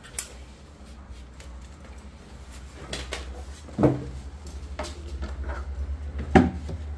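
Light knocks and clicks of hardware and fixtures being handled, with a louder thump about four seconds in and another near the end, over a low steady hum.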